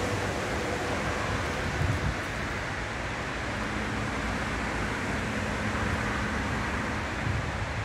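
Steady rumble and hiss of motor vehicle road noise, with a faint steady hum midway.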